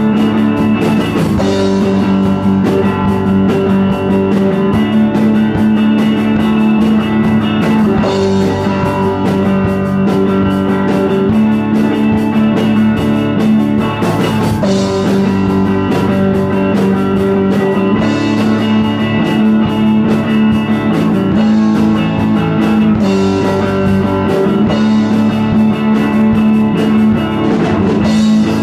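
Live rock band playing a song: electric guitar strumming chords over a drum kit beating out a steady rock rhythm on snare, cymbals and kick drum.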